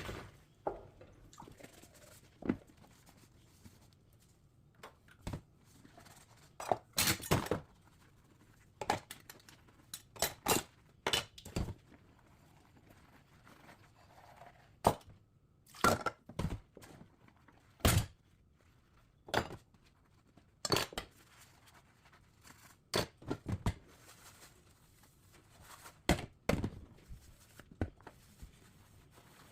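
Dishes and cutlery being handled while washing up, with irregular clinks and knocks of crockery and utensils separated by quiet pauses.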